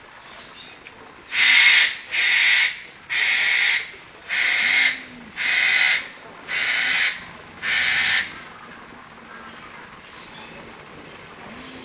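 Seven short, harsh hissing sounds, about one a second, that then stop.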